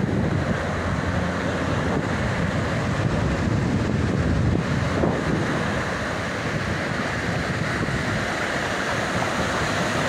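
Ocean surf breaking and washing through shallow water, a steady rushing hiss, with wind buffeting the microphone.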